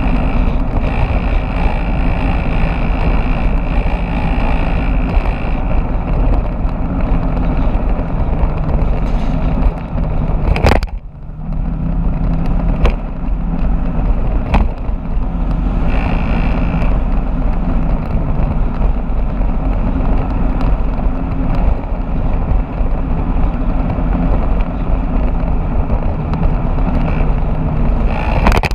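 Motorbike running steadily at road speed, heard from the moving bike: a continuous engine drone mixed with road and wind rumble. A sharp click and a brief drop in level come about eleven seconds in.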